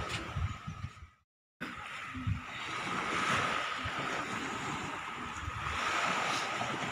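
Beach ambience: waves washing on the shore and wind on the microphone, with a faint steady high tone underneath. The sound cuts out for a moment about a second in, then comes back.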